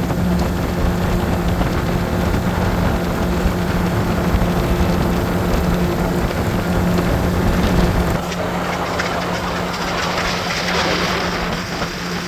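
A motor running steadily with a low hum, its deep rumble falling away about eight seconds in, with wind noise on the microphone.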